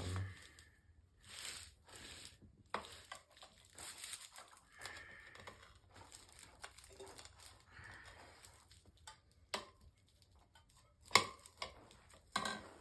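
Tire irons and hands working the last of a dirt bike tire's bead over the rim: scattered scrapes, rubs and clicks of the levers against rim and rubber, with a sharp knock about eleven seconds in.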